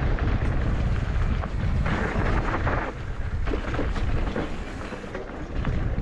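Mountain bike riding on a dirt forest trail: wind buffeting the on-bike or helmet camera's microphone in a steady low rumble, with rattles and clicks from the bike and tyres on the ground and a stretch of hiss about two seconds in.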